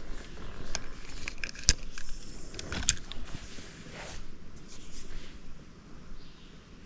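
A series of sharp clicks, knocks and rattles from fishing gear and the catch being handled in a small boat, the loudest about two seconds in, with rustling that dies down after about five seconds.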